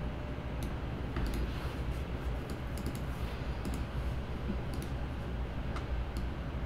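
Light, irregular clicking from computer use, some clicks in quick clusters, over a steady low background hum.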